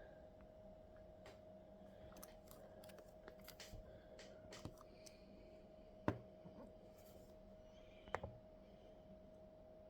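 Faint scattered clicks and taps of small hard objects being handled, with two sharper knocks about six and eight seconds in, over a steady low hum.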